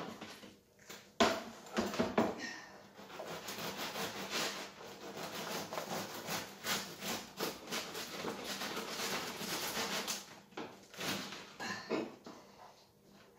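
Bread knife sawing back and forth through the crisp crust of a freshly baked loaf, a run of rasping strokes that starts about a second in, eases about ten seconds in, and returns briefly near the end.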